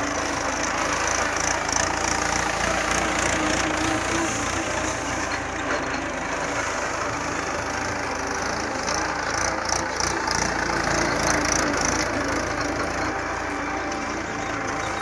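Mahindra tractor's diesel engine running steadily at low speed as the tractor drives over spread paddy straw, threshing rice under its wheels.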